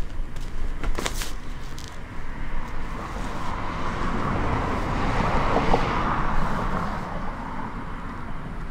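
A road vehicle passing by: a broad rush of noise that swells from about three seconds in, peaks just past the middle and fades away. A single sharp click about a second in.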